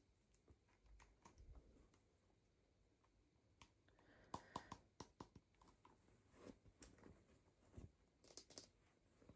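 Faint handling of toy packaging: scattered light clicks and plastic crinkles, with a brief run of sharper clicks about halfway through and another near the end.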